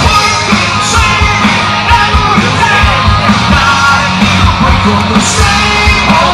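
Loud rock music with a yelled, sung vocal over a steady bass and drum beat.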